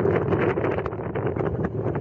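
Wind buffeting the microphone on the deck of a moving CityCat catamaran ferry, over the steady running noise of the ferry and the water.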